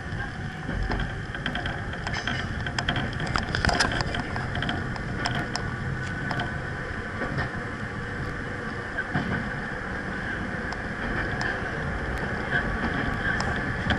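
Kobe Electric Railway electric train, car 3015, running along the track, heard from the driver's cab: a steady rumble of wheels on rails with a steady higher hum, and scattered sharp clicks and knocks, most of them a few seconds in.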